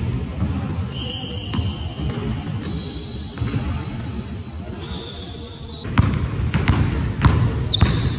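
Basketball bouncing on a hardwood gym floor during dribbling, with sneakers squeaking in short high chirps during the footwork. The bounces come thicker near the end.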